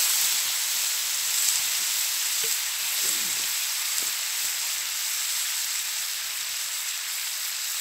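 Chicken in tomato and chili sauce sizzling in a steel frying pan over a campfire: a steady frying hiss that eases off slightly.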